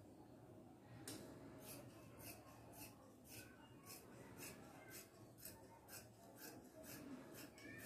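Large tailor's shears cutting through folded cloth: faint, steady snips about twice a second, starting about a second in.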